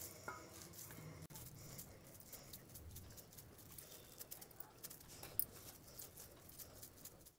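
Faint, soft patting of hands shaping a soybean and gram-flour dough into round kebab patties, with a few light ticks scattered through.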